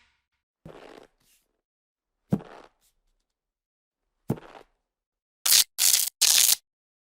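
A string of short video-transition sound effects separated by silence: a soft noisy swish just under a second in, sharper hits about two and a half and four and a half seconds in, then three loud noisy bursts in quick succession near the end.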